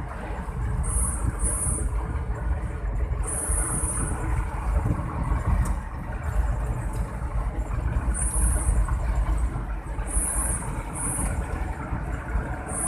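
Mitsubishi Colt T120SS engine running steadily, with a high-pitched 'ngir ngir' whine that comes and goes in short bursts every second or few seconds.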